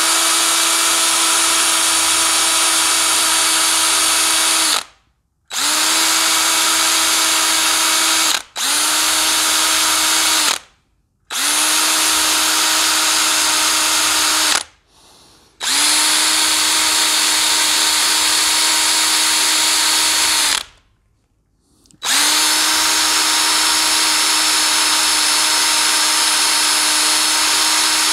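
Handheld power drill drilling out the rivets in a plastic circuit-breaker case, running in six bursts of a few seconds each with short pauses between. Each burst is a steady whine that comes up to speed quickly at the start.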